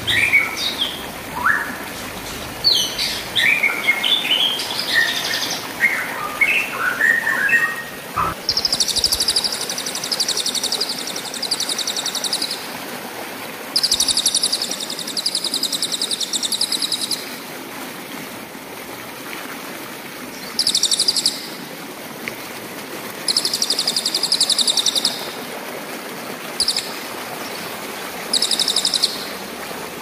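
Songbird song for a masteran tutor track. First comes a run of varied whistled notes sliding up and down for about eight seconds, then high, fast trills repeated in bursts of one to four seconds. A stream rushes steadily underneath.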